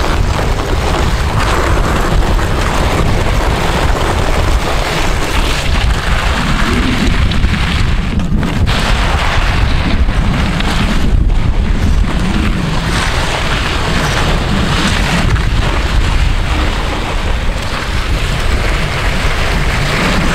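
Steady loud rush of wind on the microphone and vehicle road noise from a moving tow, with the scrape of a rider in leathers and jeans sliding along asphalt on a rope.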